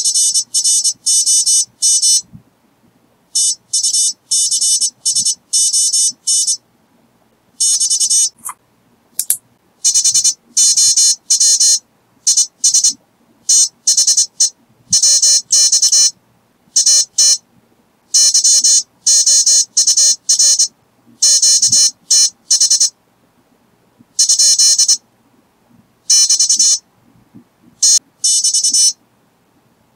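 Morse code keyer sidetone sent at 24 words per minute: groups of buzzy, high-pitched dits and dahs with short gaps between words, spelling out 'FROM TUCSON = HOW IS THE WX AT YOUR QTH?'. The keyword FROM before the town is what makes the logging software enter Tucson as the station's QTH.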